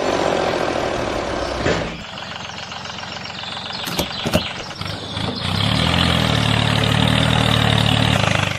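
Engine idling steadily, its tone shifting about two seconds in and again about five and a half seconds in, with two sharp knocks around four seconds in.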